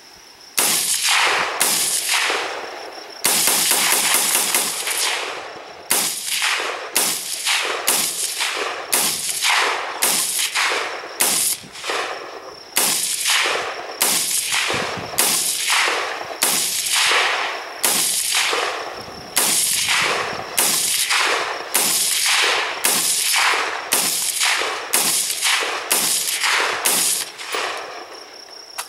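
AR-15 rifle in .223 firing a long string of shots, roughly one to two a second, with a quicker run of several shots about three seconds in. Each report dies away briefly before the next.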